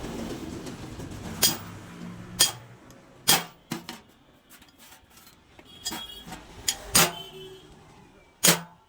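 Sharp metallic clinks and knocks, about eight of them at irregular intervals, as metal tools or parts are handled during repair work. A low hum runs under the first two and a half seconds, then stops.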